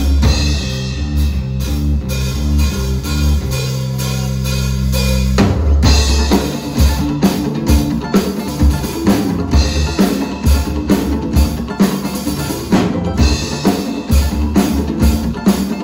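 Band music with a drum kit keeping a steady beat over bass notes. The drums thin out a couple of seconds in under held bass notes, then come back strongly about five and a half seconds in.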